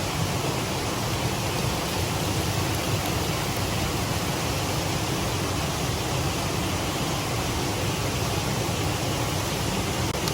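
Steady, even rushing noise with no distinct events, like running water or wind.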